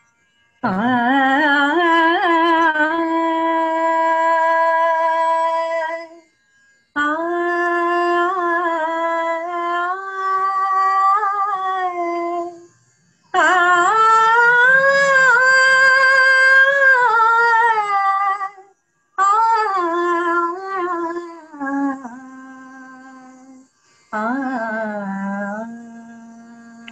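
A woman singing solo in an Indian light-classical style. She sings five phrases of long held notes with wavering, sliding ornaments, each phrase a few seconds long, with short breath pauses between them.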